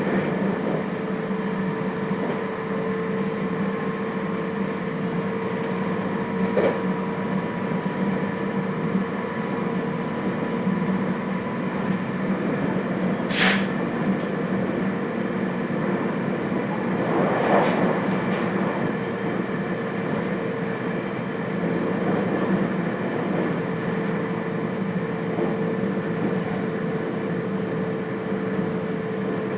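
Running sound inside a JR Hokkaido 721 series electric multiple unit motor car with thyristor phase control, heard at steady speed: wheel and rail noise under a steady electrical hum of several tones. About halfway through comes a short, sharp high-pitched burst, and a swell of noise follows a few seconds later.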